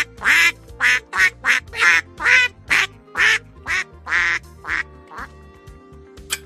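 A duck quacking in a quick run of about a dozen quacks, two to three a second, fading out about five seconds in.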